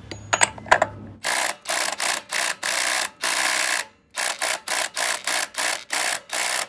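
Cordless 20-volt impact drill hammering at a tight 1-inch lock nut on a wheel hub, run in short repeated bursts. There is a brief pause about four seconds in, and a few clicks come before the first burst.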